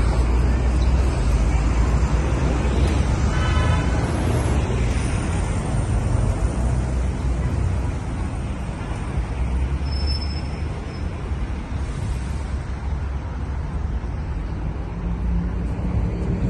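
Outdoor city background noise: a steady low rumble, with a brief high-pitched tone about three and a half seconds in.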